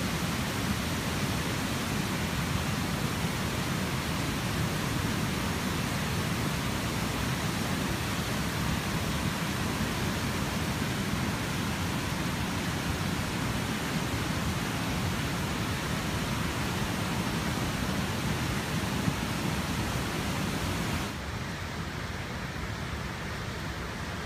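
Flash-flood water rushing down a normally dry creek, a steady dense rush of noise. About 21 seconds in it drops to a quieter, duller rush.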